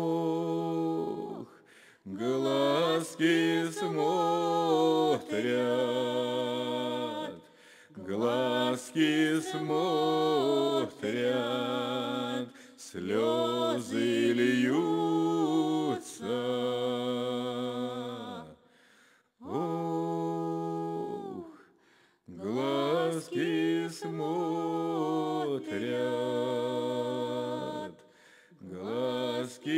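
Slow unaccompanied singing in long, wavering sung phrases, with short pauses between them.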